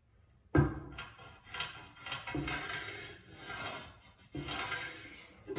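Ceramic tile and tools handled against a hard countertop: a sharp knock about half a second in, then irregular rubbing and scraping, and another knock near the end.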